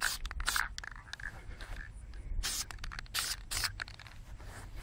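Krylon aerosol spray-paint can sprayed in short hissing bursts: a few right at the start, then a quick run of about five more from about halfway through.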